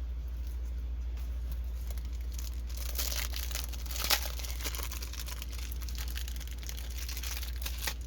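Diamond painting kit packaging crinkling and rustling as it is handled and pulled open, busiest in the second half, with one sharp snap about four seconds in, over a steady low hum.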